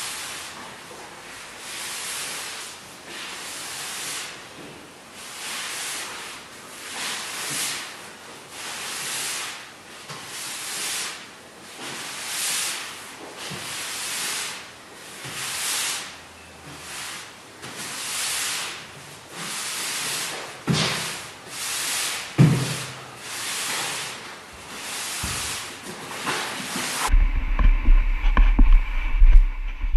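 Rhythmic swishing strokes of an applicator spreading hard waxoil across oak floorboards, a little more than one stroke a second. Near the end it cuts to a louder, steady low hum.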